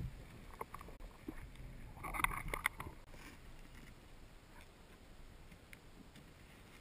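Underwater ambience heard through a camera's waterproof housing: a steady low water rumble with scattered sharp clicks and crackles, and a denser cluster of clicks about two seconds in.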